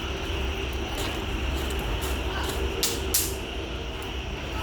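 A few short, sharp snaps, the two loudest close together about three seconds in, over a steady low rumble.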